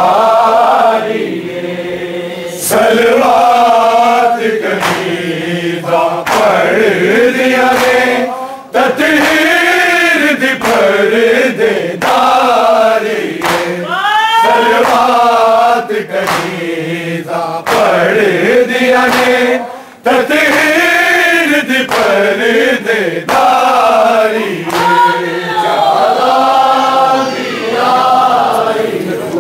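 Men's voices chanting a noha, a Shia mourning lament, in long rising and falling phrases with short breaks between them.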